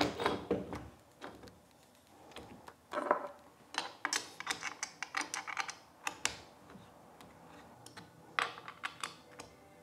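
Light metal clicks and knocks of a studio camera stand's leg being fitted into its socket on the base and its screw worked by hand, with a quick run of clicks about three seconds in and another short cluster near the end.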